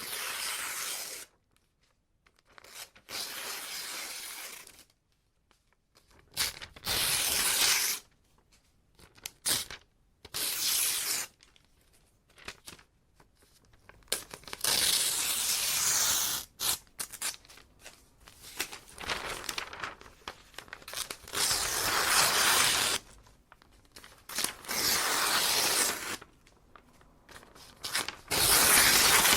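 Paper being ripped by hand in a series of separate tears, each lasting from half a second to a couple of seconds, with short pauses between them.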